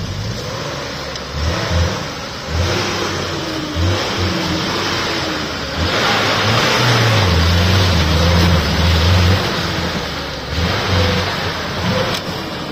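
Off-road 4x4's engine revving up and down hard under load while stuck in deep mud, its wheels spinning without getting out. A louder rushing noise swells from about halfway and eases off again near the end.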